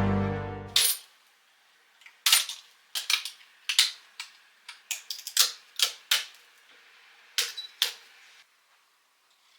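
Music fading out, then a run of sharp, irregular clicks and taps, about fifteen over some seven seconds, each with a short ring.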